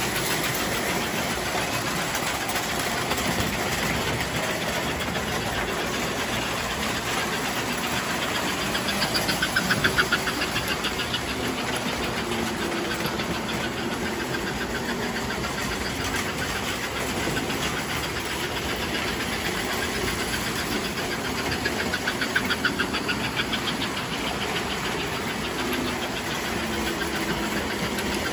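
Three-rail O gauge toy trains running around a layout: a steady rumble of motors and wheels on the track. It swells twice, about ten seconds in and again around twenty-two seconds, with rapid clicking.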